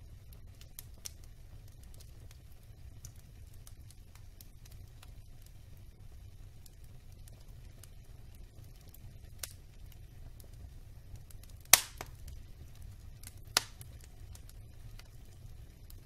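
Wood logs burning in a fireplace, crackling with scattered small snaps over a low steady rumble. Two loud pops stand out late on, about two seconds apart, the first the louder.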